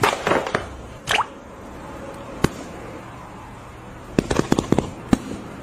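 A French bulldog's paws thumping and tapping on a leather sofa as it hops about: one sharp knock near the middle, then a quick cluster of taps about four seconds in.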